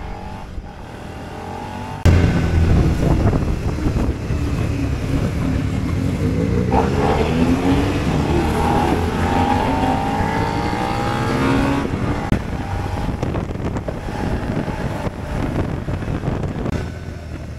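Motorcycle engines revving up and down. Several overlapping engine notes rise and fall in pitch, and they are busiest and loudest in the middle stretch.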